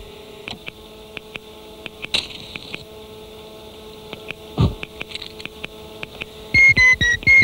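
Steady electrical hum and hiss with scattered faint clicks, and a low falling swoop about halfway through. Near the end comes a quick run of short, high electronic beeps, about four a second, stepping slightly up and down in pitch.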